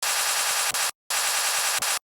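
Sped-up recording of a person snoring in his sleep. It comes out as a loud, hissing rattle with a fast pulse, broken by a brief dead silence about halfway through.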